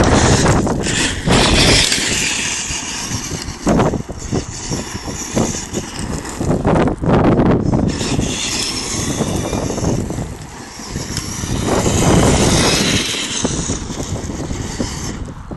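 Gusts of wind buffeting the microphone, mixed with an electric Traxxas E-Maxx RC monster truck running over loose gravel.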